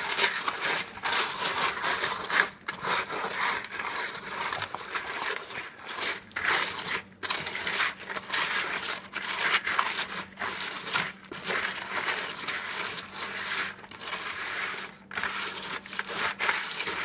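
Irregular crunching and scraping as Chex cereal coated in melted chocolate is stirred in a large bowl with a spatula, mixed with crinkling of a plastic zip-top bag.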